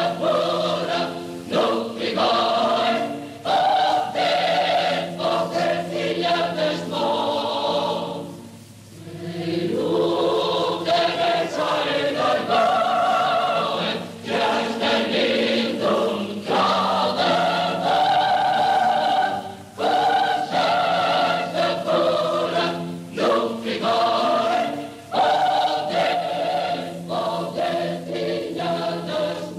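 A choir singing long held chords in several parts, with a short break in the singing about eight seconds in.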